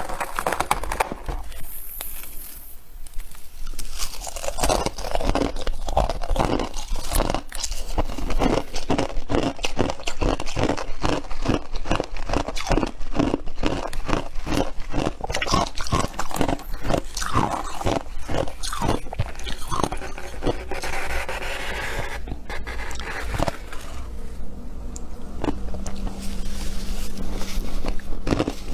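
Close-up chewing of squeaky freezer frost: a quick, steady rhythm of crunching bites.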